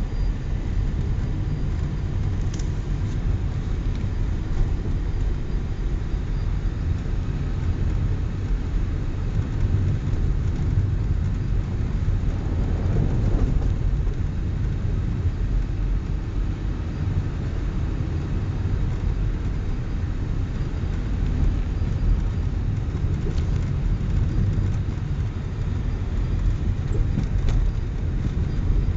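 A car driving along a snow-covered road, heard from inside the cabin: a steady low rumble of engine and tyres, with a few faint clicks.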